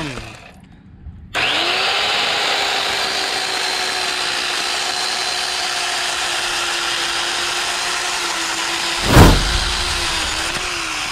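Worx corded electric chainsaw with a new, sharp chain cutting through a log. The motor stops, then starts again suddenly about a second and a half in and runs with a steady whine, its pitch sagging slightly near the end. A short, loud burst of noise comes about nine seconds in.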